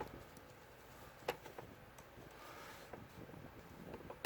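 Quiet handling of a multimeter test probe and pliers, with one sharp click about a second in and a few faint ticks, as a part is pushed into the probe.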